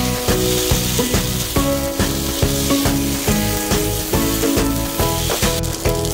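Pad Thai noodles sizzling in a hot wok, tossed and stirred with tongs, over background music with a steady beat.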